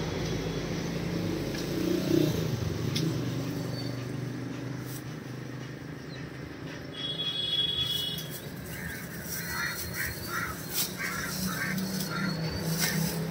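Background traffic running steadily at an open-air market stall. A thin plastic carry bag rustles and crinkles in the last few seconds as it is handled.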